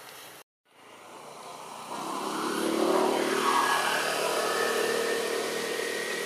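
A motor vehicle engine getting louder over about two seconds, then running loud with a slowly rising whine as it accelerates.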